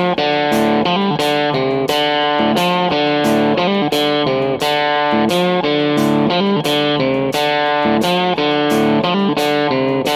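Background music led by electric guitar, with a steady beat.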